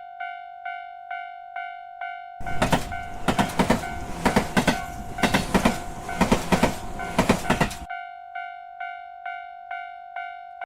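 Japanese railroad crossing bell ringing its steady "kan-kan", about two and a half strikes a second. From about two seconds in to about eight seconds a train passes, loud, its wheels clattering over the rail joints. The bell keeps ringing after the train has gone.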